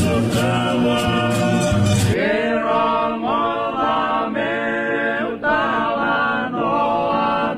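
Music with drums and bass that stops about two seconds in, followed by several voices singing together without instruments.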